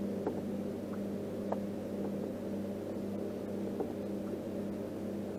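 Boat motor running with a steady, even hum while the boat holds against a dock, with a few faint light ticks over it.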